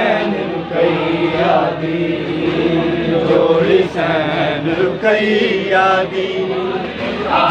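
Group of men chanting a noha, a Shia mourning lament, together in a continuous chorus of overlapping voices.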